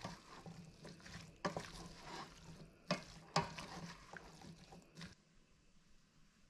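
Wooden spatula stirring chopped onions and peppers frying in oil in a stainless steel pot, with a faint sizzle and a few sharp scrapes of the spatula against the pot's side. It stops about five seconds in.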